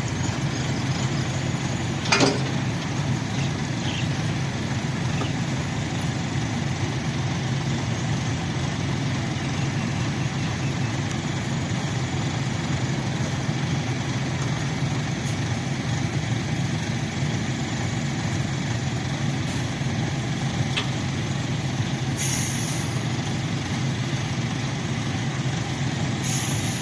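Truck engine running steadily with a low drone. There is a short sharp sound about two seconds in, and brief high hisses near the end.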